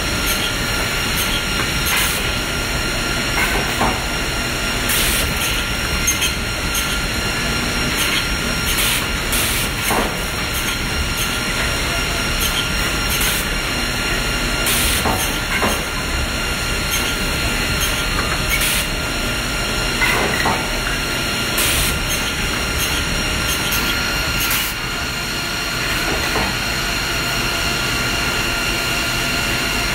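Woodmaster WM-S260 high-speed defect-trimming cut-off saw line running: a steady mechanical din with a high whine, broken by sharp clacks every second or two as the line handles and sorts the cut wood pieces. It turns a little quieter and smoother in the last few seconds.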